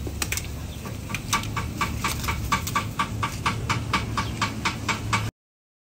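A small dog chewing food scraps, a quick, even run of crunching clicks about five a second, over a steady low hum.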